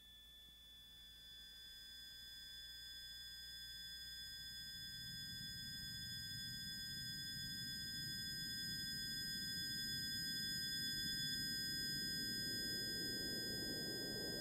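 Electronic tape music. Several steady, high sine tones are held together while a low noise swell grows steadily louder and spreads upward in pitch. A couple of the tones cut off about eleven seconds in as the swell keeps building.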